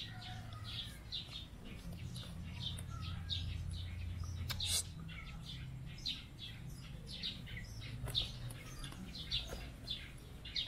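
Small birds chirping repeatedly in the background: short high chirps every half second to a second, over a low steady rumble. A single sharp click sounds near the middle.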